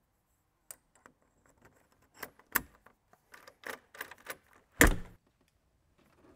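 Metal clicks and rattles of a door-knob lockset as the knob is worked onto its spindle against the rose, with one loud clack about five seconds in.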